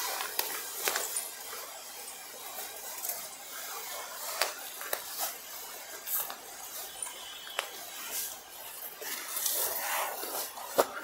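Rustling of a silk saree being unfolded and spread out by hand, with small scattered clicks and taps; the rustling grows louder near the end.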